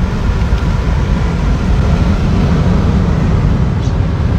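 Steady, low road and wind noise inside the cabin of an electric Tesla travelling at speed, with no engine note.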